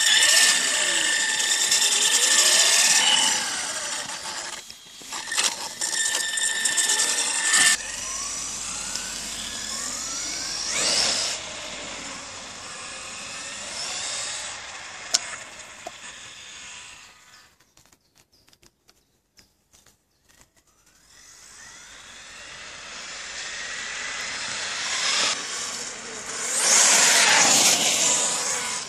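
HPI Savage Flux XL electric RC monster truck driving on wet pavement, its brushless motor and gears whining and rising and falling in pitch as it speeds up and slows. The whine fades almost to nothing about two thirds of the way through, then comes back loud near the end.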